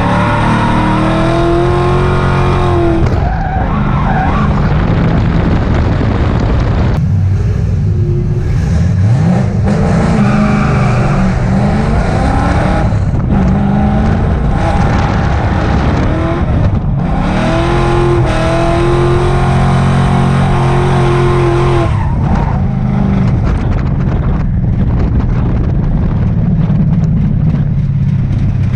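Ford Mustang engine at full throttle on a race track, revving up and dropping back again and again through gear changes and braking, with tyres squealing at times in the corners.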